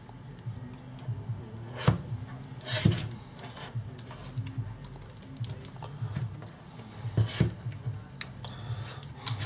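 Small tools and plastic parts being handled during disassembly of a portable Bluetooth speaker: rubbing and scraping, with a few sharp clicks about two and three seconds in and again about seven seconds in.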